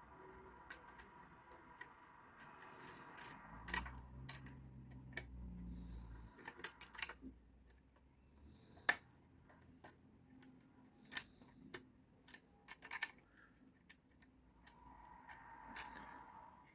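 Lock picks working inside the cylinder of a Stalf cross-keyway garage lock: irregular small metallic clicks and scrapes as the pins are manipulated.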